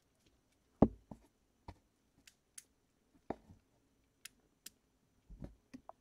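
Irregular clicks, taps and knocks of hands fiddling with a small piece of equipment, about a dozen spread unevenly, the loudest a knock about a second in.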